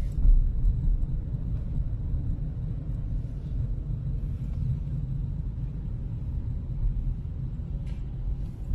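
Steady low rumble of a car in motion, heard from inside the cabin: engine and road noise.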